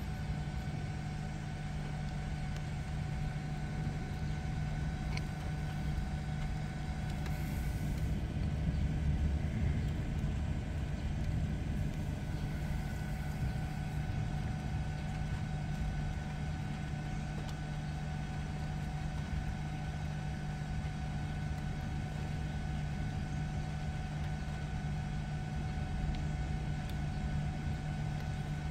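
Steady low hum of an idling vehicle heard from inside the cab, with a faint, even whine over it.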